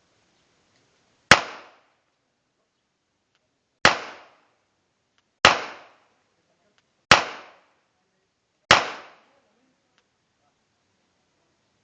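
Five single shots from a Glock pistol, fired at an unhurried pace about one and a half to two and a half seconds apart, each a sharp crack with a short decaying echo.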